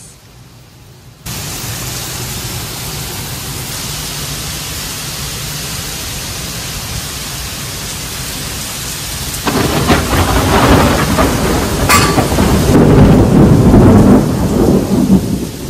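Heavy rain from a passing storm: a steady hiss of downpour that starts abruptly about a second in, then from about ten seconds a much louder, rough low rumbling for several seconds.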